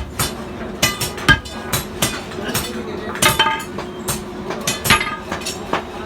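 Blacksmith's hammer striking steel on an anvil while forging, irregular blows about two a second, each with a short metallic ring.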